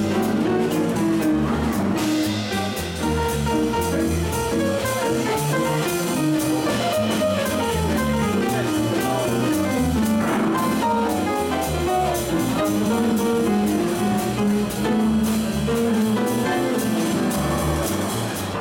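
A live jazz combo playing: piano over a plucked upright double bass line, with a drum kit keeping time.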